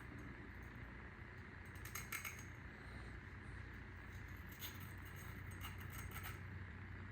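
Light metallic clinks and rattles of tools and hardware being handled, a few clustered about two seconds in and more between about four and a half and six and a half seconds, over a steady low hum.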